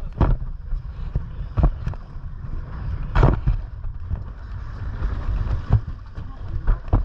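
Low steady rumble of a boat's engine with wind on the microphone, broken by several sharp thumps, the loudest about three seconds in.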